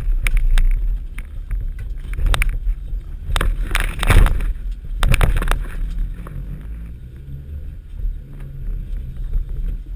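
Inside the cab of a 1989 VW T3 Syncro van driving slowly over a rough offroad track: a low engine and drivetrain rumble, with clattering knocks and rattles from the body and suspension as the van jolts over bumps. The knocks come thickest and loudest between about three and a half and five and a half seconds in.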